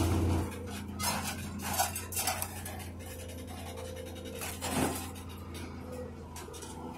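A scrap-yard grapple machine's engine running steadily while the grapple lifts an old truck off a loaded trailer, with a few sharp metal clanks and scrapes.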